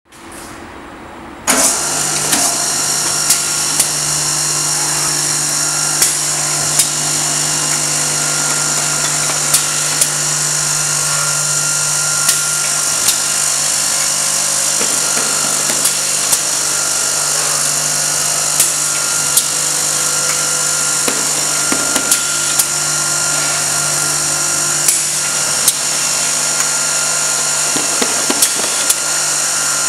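Automatic candle-head sharpening machine switching on about one and a half seconds in, then running steadily with a motor hum and whir. Sharp clicks from its mechanism come at uneven intervals, about one a second.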